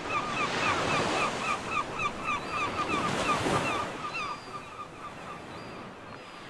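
Ocean surf breaking on a beach, swelling over the first few seconds and fading away after about four seconds, with a bird calling in a rapid series of short, repeated notes, about four a second, throughout.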